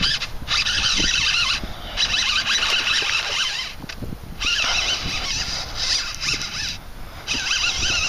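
Fishing reel being cranked to retrieve line: a whirring buzz in several spurts of about a second each, with short pauses between them.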